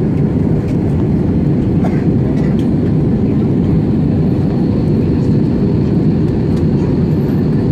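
Steady cabin noise of an Airbus A320neo in flight, heard from a window seat over the wing: a constant low rush of airflow and its Pratt & Whitney PW1100G geared turbofan engines.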